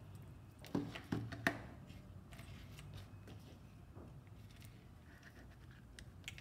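Small plastic electronics and wire connectors being handled and plugged together: a few sharp clicks about a second in, then faint ticks and rustles, over a low steady hum.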